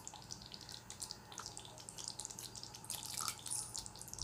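Thick curry simmering in a steel kadai: faint, irregular little pops and plops of bubbles breaking at the surface.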